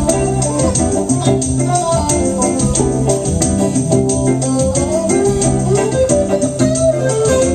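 Live band playing amplified music, with electric and acoustic guitars, held chords and a steady beat.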